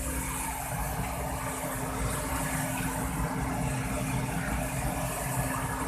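Engine running steadily at idle: an even low rumble with a constant hum.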